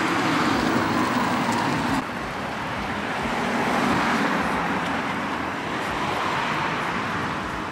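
City street traffic noise: the steady sound of cars going by on the road, with one car passing close about four seconds in.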